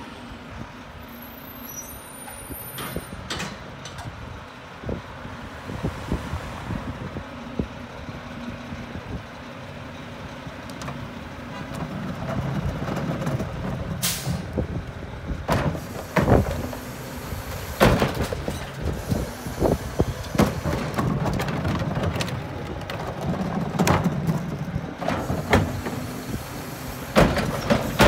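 Mack rear-loader garbage truck's diesel engine idling steadily, its note swelling a couple of times, with a short air hiss about halfway through. From then on there are loud clanks and bangs as plastic recycling carts are wheeled up and hooked onto the truck's rear cart tipper.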